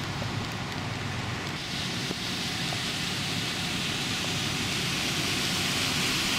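A vehicle drives through deep floodwater, its tyres throwing up spray. A steady rushing hiss over a low rumble grows louder as it passes.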